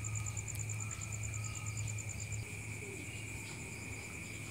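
Night crickets chirping: a high, fast pulsing chirp of about eight pulses a second that fades about halfway through, over a steady high trill and a low steady hum.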